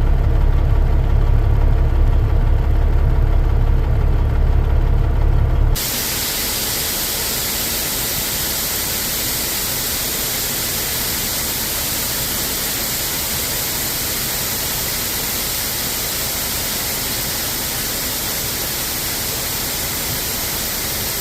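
Low rumble of the semi truck's engine running for about six seconds, then a sudden switch to a loud, steady hiss of static from a faulty audio track, with no real sound from the scene.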